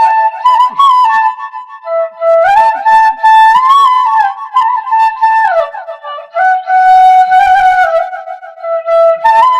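Bansuri, the Indian bamboo flute, playing a slow melody with slides between notes, including a falling slide about five and a half seconds in.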